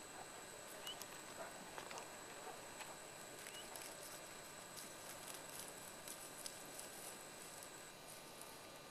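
Faint open-field ambience: a steady hiss with a thin high-pitched whine that drops out near the end, light scattered clicks and a few brief faint chirps.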